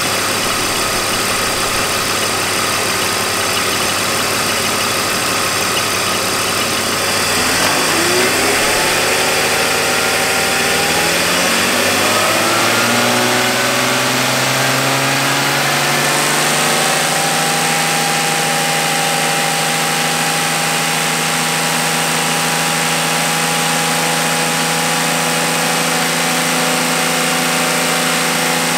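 BMW car engine idling, then brought up slowly over several seconds and held steady at a raised speed of about 3000 rpm, to test the alternator's voltage regulator under higher revs.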